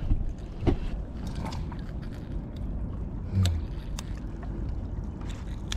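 A few small metal clicks and taps as surgical forceps work a fishing hook out of a fish's mouth, over a steady low rumble of water around a paddleboard.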